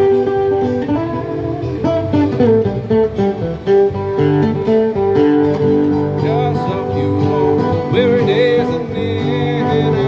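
Steel-string acoustic guitar strummed steadily through a chord progression, with a man singing over it.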